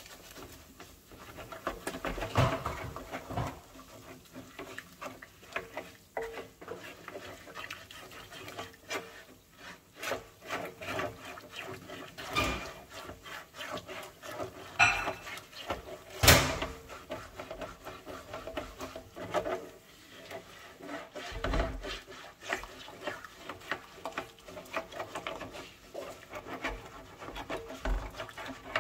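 Toothbrush bristles scrubbing a greasy mesh range-hood filter soaking in hot soapy water, working the oil loose: quick, uneven scratchy strokes that keep going, with a few sharper knocks, the loudest about 16 seconds in.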